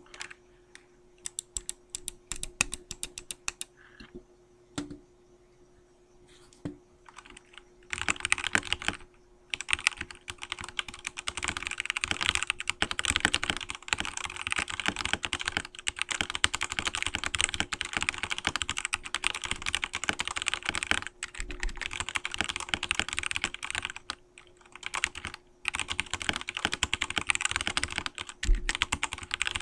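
Royal Kludge RK987 mechanical keyboard being typed on: scattered single keystrokes for the first several seconds, then fast continuous typing from about eight seconds in, broken by a couple of short pauses.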